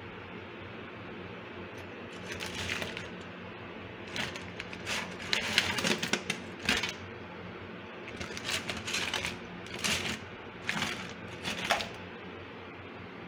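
Crab shells and claws clattering and scraping against each other and the stainless steel sink as a hand rummages through a pile of blue swimming crabs, in irregular bursts of clicks, over a steady low hum.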